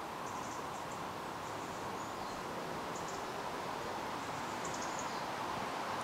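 Woodland ambience: a steady background hum with short, high chirps from small birds every second or so, a cluster of them near the end.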